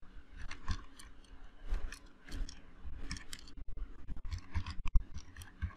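Computer keyboard typing: a run of irregular, quick keystroke clicks as a filename is typed in.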